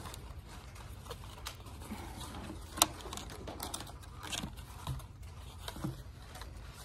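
Thin black ash splints clicking and rustling against each other as a basket is woven by hand: scattered light taps, with one sharper click about three seconds in.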